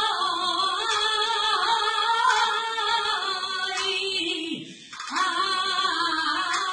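A woman singing a saeta, the unaccompanied flamenco lament sung to a Holy Week procession, in long wavering held notes; she breaks off briefly for breath about four and a half seconds in.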